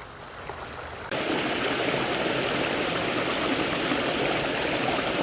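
Small clear stream flowing over little falls: a steady rush of running water that jumps suddenly louder about a second in.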